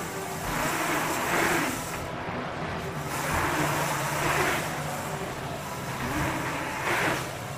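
A mountain bike being ridden on an indoor dirt track: a steady rumble of tyres and drivetrain, with hissing noise that swells and fades every second or two.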